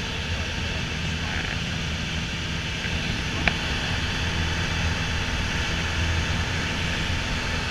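Piper PA-28 Warrior's four-cylinder Lycoming engine and propeller droning steadily, heard inside the cabin together with the rush of airflow. A single sharp click comes about three and a half seconds in.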